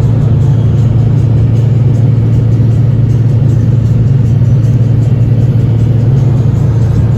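Steady low drone of a vehicle on the road, heard from inside the cab, with engine and road noise running evenly and no change in speed.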